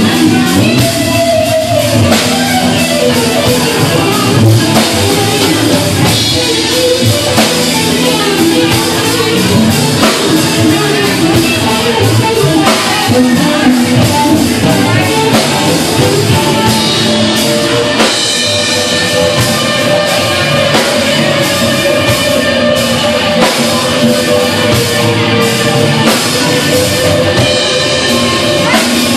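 Live rock band playing: a Stratocaster-style electric guitar through a Marshall amplifier over a steady drum-kit beat.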